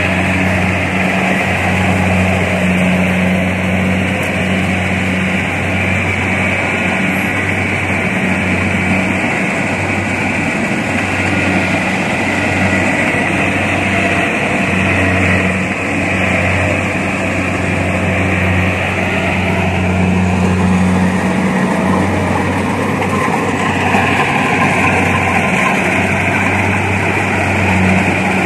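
Kubota crawler combine harvester running steadily under load while cutting and threshing rice: a constant engine drone with a steady rush of machinery above it.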